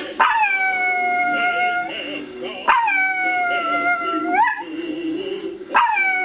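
A dog howling along to music in three long held notes. Each howl swoops up quickly, then holds and slowly sinks, and the second rises again at its end. Music plays steadily underneath.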